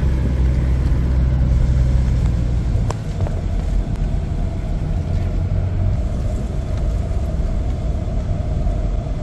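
Four-wheel drive running along, a steady engine and tyre rumble, with a single knock about three seconds in.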